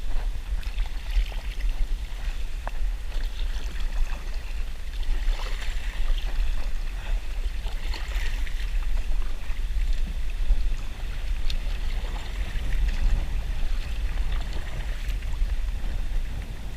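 Strong wind rumbling on the microphone, with water lapping and splashing against a kayak hull in choppy water.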